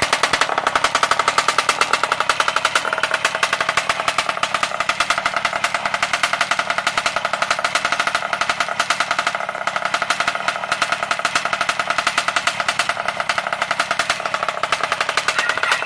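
Small bike engine running through a test-fitted exhaust pipe, giving a steady, rapid string of popping exhaust pulses.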